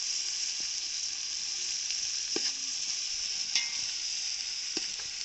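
Sliced onions sizzling in hot oil in a large aluminium pot as they are fried for biryani. They are stirred with a metal slotted ladle that clicks against the pot three or four times.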